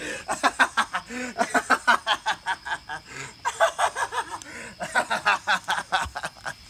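A man laughing hard in rapid 'ha-ha-ha' pulses, in three runs with short breaks between them.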